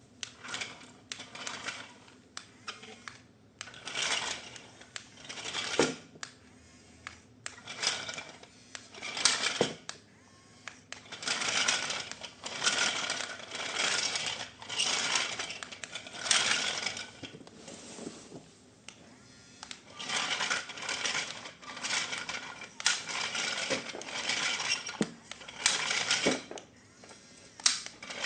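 Plastic and cardboard packaging being handled and opened: repeated crinkling rustles, each lasting up to about a second, with scattered sharp clicks.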